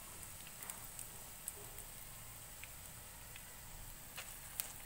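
Hot oil sizzling steadily in a frying pan as potato cutlets shallow-fry, with scattered sharp crackles and pops.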